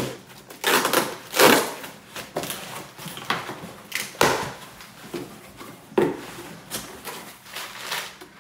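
Hands unpacking a cardboard shipping box: the flaps are pushed open and crumpled paper packing crinkles and rustles in repeated short bursts.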